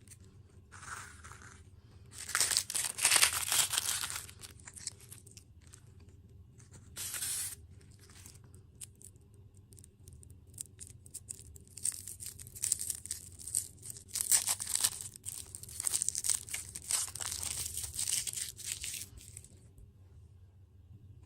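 Plastic food packaging being crinkled and torn open in bursts, with a long stretch of crackling near the end.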